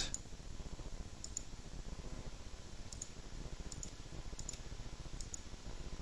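Computer mouse button clicks, faint and irregularly spaced, about ten in all, over a steady low hum.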